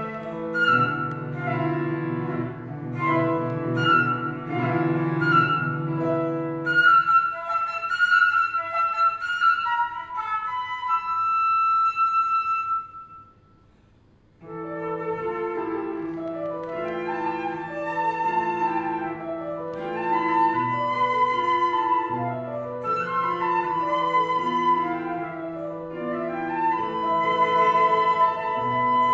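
Flute and Kawai grand piano playing a duet. The music breaks off for about a second and a half around halfway through, then both instruments resume.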